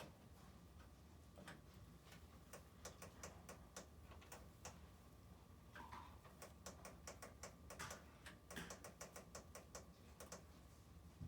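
Faint, irregular light clicks and taps, a few at first and then several a second in the second half.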